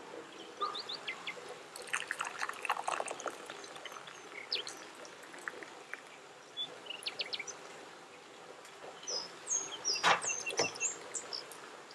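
Hot herbal ginger decoction being poured through a strainer, with scattered small clinks of utensils and one sharp clink about ten seconds in. Birds chirp in the background.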